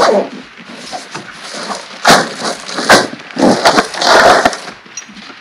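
Hard plastic snow-chain case being opened by hand: a few sharp clicks and knocks, then scraping and rustling as the lid comes open and the contents are handled.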